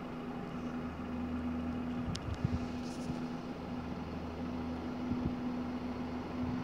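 Car running, a steady engine and road hum with a constant low tone, heard from inside the car, with a few low thumps about two seconds in.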